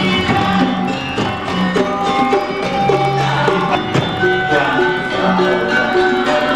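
Instrumental music with held pitched notes and occasional percussive strikes, one sharp strike about four seconds in.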